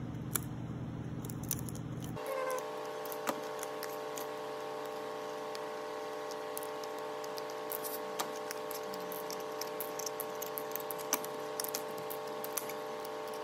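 Small wooden clicks and snaps as thin laser-cut plywood pieces are broken out of their sheet and handled, scattered irregularly. Under them is a steady machine hum: a low hum gives way to a higher steady hum about two seconds in.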